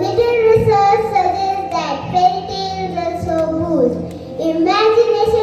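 Children's voices singing a melody, with long held notes that glide between pitches.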